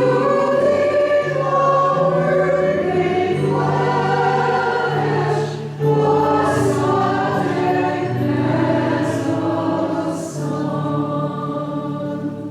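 A group of voices singing a hymn in long held notes. The singing fades out near the end.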